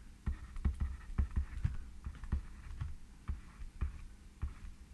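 Pen tip knocking and scraping on the writing surface as words are handwritten: about a dozen short, irregular taps with a dull thump to each.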